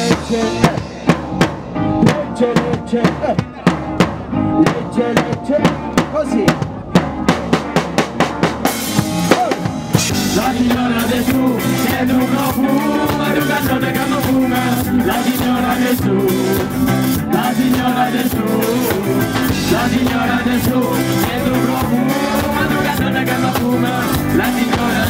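Live roots reggae band. For about the first ten seconds the drum kit dominates with sharp, evenly spaced hits; then the full band comes in and plays on steadily.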